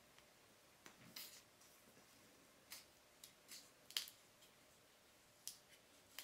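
Plastic screw cap of a 20-year-old Crystal Pepsi bottle being twisted open, giving a scattered series of faint clicks and crackles, about eight in all, as the cap turns and its seal gives.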